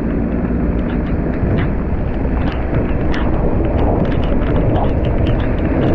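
Heavy rain pelting a moving car, many sharp drop impacts over a steady low rumble of the car and wind on the wet road.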